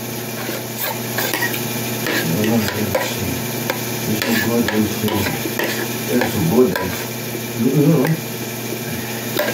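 Metal spoon and fork scraping and clinking against a ceramic plate as rice is scooped up, in a run of short irregular scrapes and taps.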